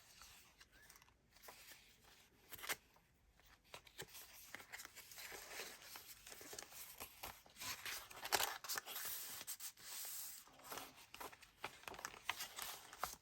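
Faint rustling and crinkling of paper with light taps and clicks: the paper pages, cards and ledger pieces of a handmade junk journal being turned and handled. The rustling grows busier about halfway through.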